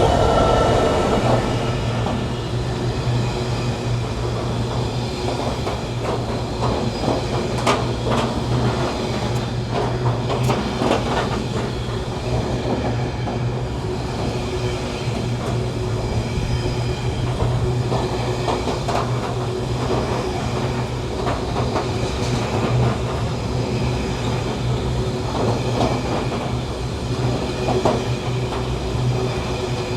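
A train running on the rails, with a steady low drone and wheels clicking and clattering irregularly over the track for the whole stretch.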